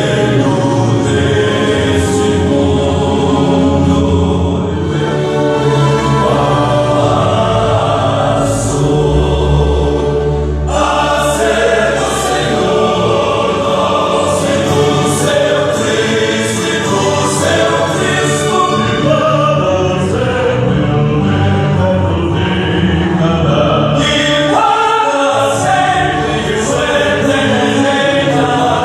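Gospel vocal quartets singing together in choral harmony.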